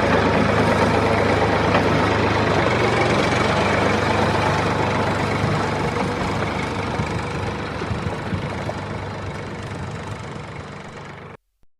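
A vehicle engine running steadily at idle. It fades out gradually over the second half and cuts off just before the end.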